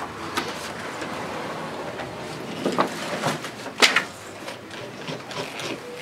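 Oil paint being worked onto a stretched canvas by hand: scratchy rubbing strokes with scattered taps, the loudest a sharp tap nearly four seconds in.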